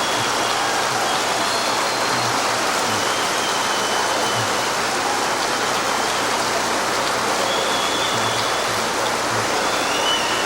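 Large audience applauding and cheering without a break, with scattered whistles: a long ovation.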